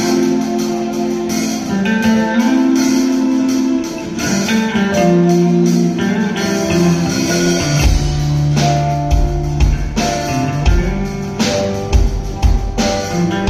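Live instrumental band playing: guitars over a drum kit, with keyboard. Deep low notes join about eight seconds in and the drum hits grow stronger.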